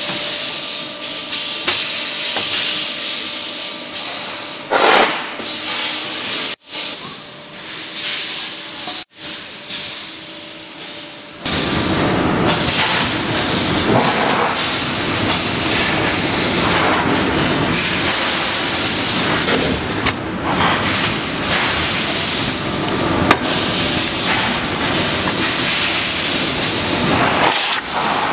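Tire inner-tube splicing machine running on a factory floor: a steady machine hum with hissing air from the pneumatic clamps. About eleven seconds in, the noise jumps to a louder, denser, even machine din.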